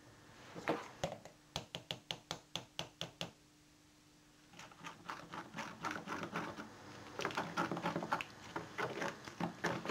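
Spoon clicking and tapping rapidly against a jug, stirring gravy granules into hot liquid: a quick run of ticks, a short pause about three seconds in, then denser clicking and scraping.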